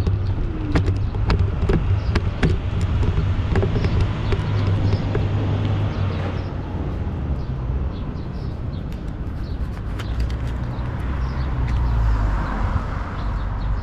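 Street noise heard from a moving bicycle: a steady low rumble of traffic and riding, with many short clicks and knocks scattered through it.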